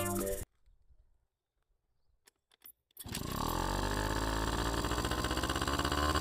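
Honda Live Dio scooter's small two-stroke engine starting about three seconds in, catching and rising in revs, then running steadily; a few faint clicks come just before it. It runs now that the carburettor's stuck-closed float valve, which had stopped the fuel, has been dealt with.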